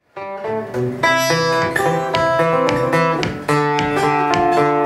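Solo fingerpicked six-string acoustic instrument, starting a moment in. A steady alternating bass line runs under a picked melody.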